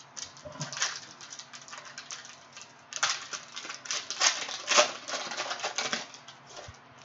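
Plastic wrapper of a Panini Prizm basketball cello pack crinkling and crackling as it is torn open by hand, a dense run of crackles loudest in the second half.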